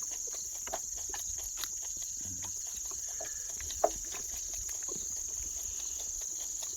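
Crickets chirring in a steady high-pitched chorus, with scattered soft clicks and one sharper click about four seconds in.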